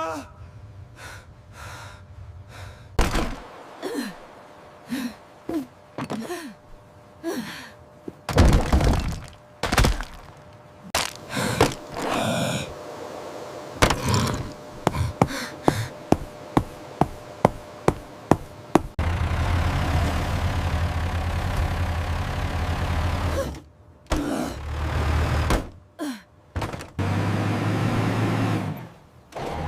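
A string of knocks and thuds, then a run of about nine sharp, evenly spaced taps. After that comes a steady low rumble that breaks off for a few seconds and starts again near the end.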